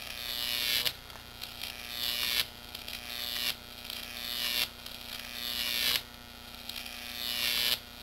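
Jacob's ladder high-voltage arc, fed by a 9,000-volt transformer, buzzing and crackling as it climbs the electrodes. Each cycle grows louder over about a second, then cuts off sharply as the arc breaks at the top and restarts at the bottom, about six times in all. A steady low hum runs underneath.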